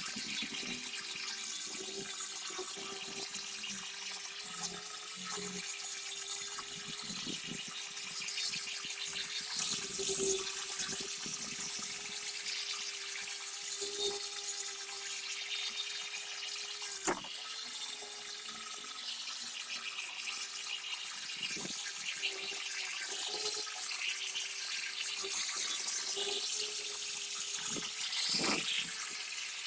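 Water running steadily, as from a tap, with a steady hum underneath and a few sharp clicks.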